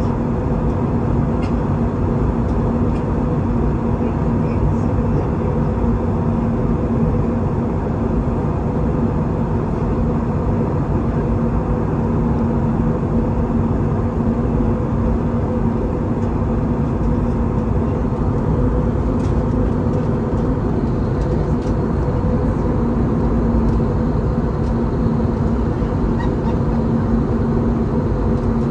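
Steady in-flight cabin noise of an Airbus A320-214 during descent, heard from a window seat: the constant rush and rumble of air and its CFM56-5B turbofan engines, with a steady low hum running through it.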